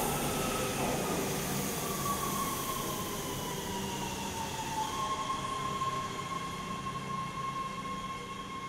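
Subway train pulling out of an underground station and running off into the tunnel, its sound slowly fading. A high whine slides down in pitch, then holds steady from about halfway.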